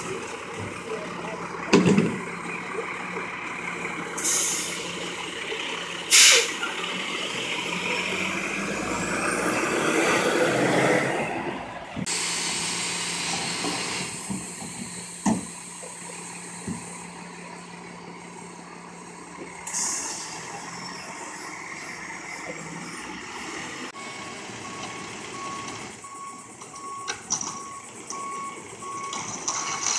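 Labrie Top Select side-loading recycling truck at work: the diesel engine runs steadily while recyclables clank loudly into the hopper twice, air brakes hiss twice, and the engine and hydraulics swell for a few seconds. Near the end a warning beeper sounds steadily.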